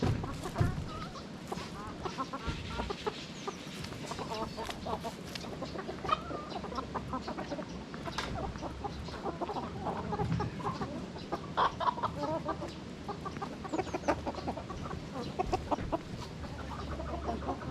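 A flock of chickens clucking, many short calls overlapping, with scattered sharp clicks among them.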